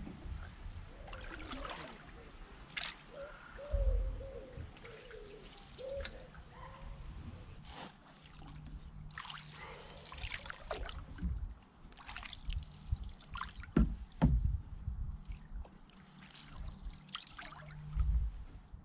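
Canoe paddle strokes in the river: irregular splashes and water trickling off the blade, with a few low thumps.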